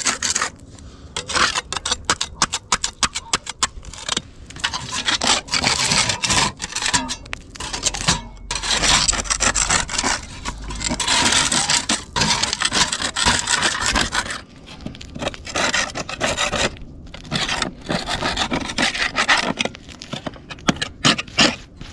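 A metal scraper scraping flaking paint and crumbling render off the top of a cement wall, in quick repeated gritty strokes with short pauses between runs. The render comes away easily because it has gone to sand underneath.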